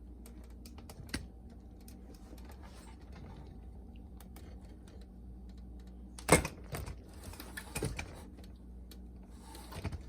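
Light clicks and clatter of hands handling the plastic boombox frame and casing, with one sharp knock about six seconds in and a few more knocks later.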